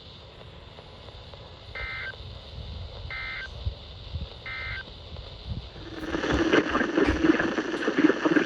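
Emergency Alert System end-of-message signal: three short two-tone data bursts, about a second and a half apart, over a low background hiss. About six seconds in, a louder noisy sound with voice-like energy starts.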